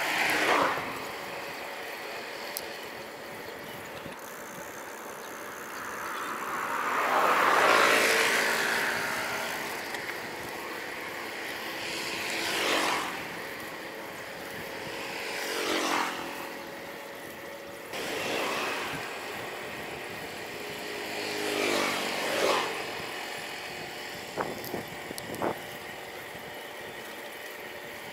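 Road traffic: about six motor vehicles pass one after another, each getting louder and then dropping in pitch as it goes by. A few light clicks come near the end.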